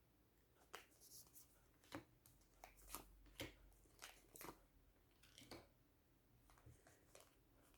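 Tarot cards being handled and laid down: faint, scattered rustles and soft card clicks, about a dozen short ones.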